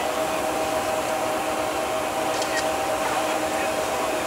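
Steady mechanical drone: an even rushing noise with a constant hum running through it.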